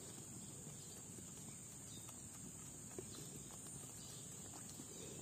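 Quiet outdoor ambience: a faint, steady, high-pitched drone of insects, with one small click about three seconds in.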